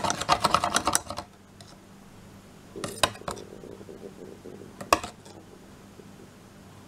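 Metal spoon stirring oil-and-vinegar salad dressing in a plastic cup, clinking rapidly against the sides for about the first second. A few lighter taps of the spoon on the cup follow near the middle, and one sharp click about five seconds in.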